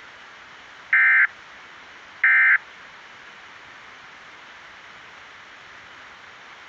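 EAS/SAME digital data bursts from a weather-radio broadcast: two short, loud, buzzy electronic bursts about a second apart, the end-of-message code that closes an alert. A steady radio hiss follows.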